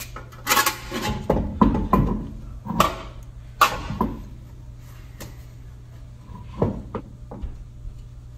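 Knocks, scrapes and light metallic clicks as wheel bolts are started by hand in an alloy wheel sitting on the hub. The sharper knocks fall in the first four seconds and a few lighter clicks follow. A steady low hum runs underneath.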